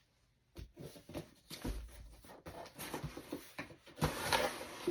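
A sealed shipping box being opened by hand: after a brief hush, a run of scattered clicks and rustles of tape and cardboard flaps, with a louder rustle about four seconds in.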